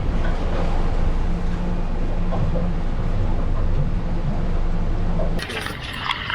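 Boat engine running steadily with a low hum, with wind and water noise over it; the engine hum stops about five seconds in.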